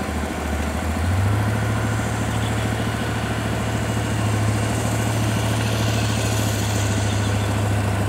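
Diesel engine of a Komatsu GD505A motor grader running as the machine drives forward and turns. Its low, steady hum steps up in pitch about a second in and then holds.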